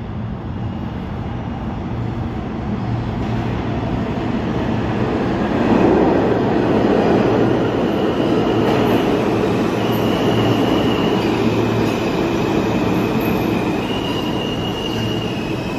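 New York City subway train moving through the station, its rumble growing louder over the first six seconds and then holding, with high steel wheel squeal coming and going from about the middle on.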